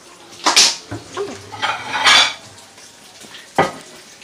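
Dishes and cutlery clattering: three short clatters about a second and a half apart, the first two loudest.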